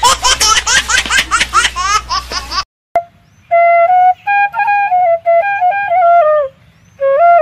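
A fast run of rising squeaky chirps over a low hum, a comic sound effect, cuts off abruptly at about two and a half seconds. After a short silence, background music starts: a single melody line gliding step by step between held notes.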